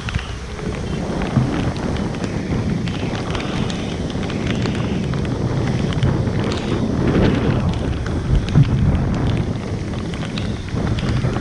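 Wind buffeting the microphone: a steady low rumble with a few short knocks.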